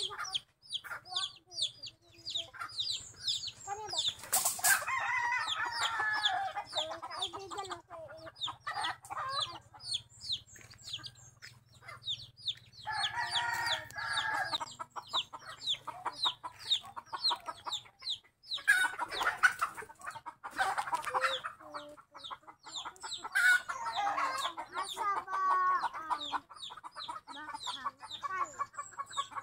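Backyard chickens: roosters crowing several times, each crow lasting a second or two, over a steady run of quick, high-pitched chirping.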